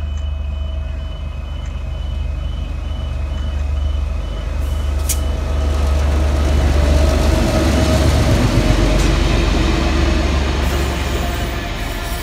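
Diesel-electric locomotive 2411 passing close by: a low engine rumble that grows louder as it approaches and peaks as it goes past, with wheel and rail noise rising alongside. A level-crossing warning beeps about twice a second through the first half.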